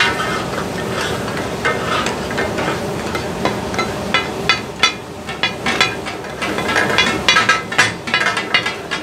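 Metal spatulas clacking rapidly against a large iron griddle as goat offal is chopped on it (the 'taka-tak' clatter), over a steady sizzle of frying meat. The strikes come in quicker, louder runs in the second half.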